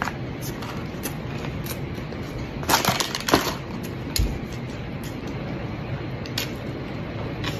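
Crunchy fried food being bitten and chewed, with a cluster of loud crunches about three seconds in and a single crunch a second later.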